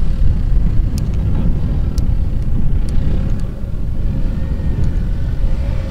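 Mahindra Thar 4x4's engine running under load as it drives up a sand dune, heard from a distance as a steady low rumble.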